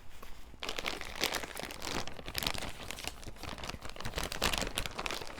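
Packaging crinkling and rustling as it is handled, in quick irregular crackles.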